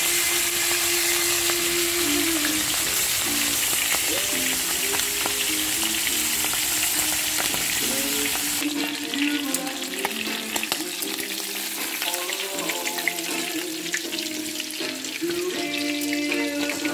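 Whole moonfish (bilong-bilong) frying in shallow oil in a pan: a steady sizzle that, about halfway through, turns to thinner sizzling with scattered crackling pops. Background music plays over it.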